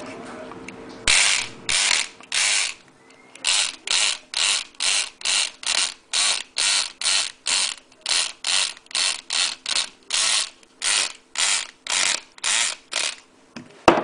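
Electric lock pick gun running in short buzzing bursts, about two and a half a second, its vibrating needle pick rattling the pins inside a pin-tumbler padlock's keyway. A single sharp click near the end.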